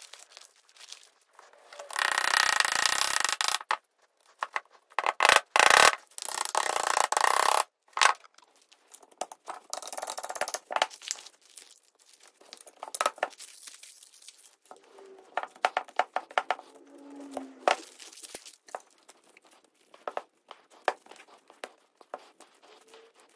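Clear plastic bag crinkling and tearing in two loud spells as new suspension bushings are unwrapped, then scattered small clicks, knocks and scrapes as the bushings are handled and pushed into the eyes of a steel A-arm.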